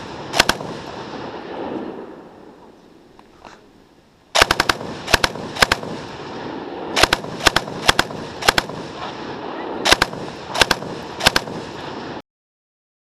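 PKM 7.62×54mmR machine gun firing: sharp shots, single and in quick pairs, irregularly spaced, over a steady noise bed. There is a lull of about three seconds near the start, then a run of shots that cuts off abruptly about twelve seconds in.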